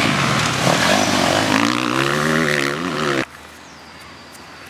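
Loud engine of an off-road vehicle driving past on a dusty dirt track, its pitch rising and falling as it revs. It cuts off suddenly about three seconds in, leaving quiet outdoor background.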